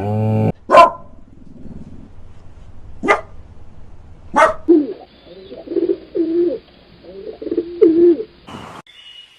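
Farm animal calls: a low pitched call that breaks off right at the start, three sharp short calls, then a run of low wavering cooing calls that cuts off abruptly near the end.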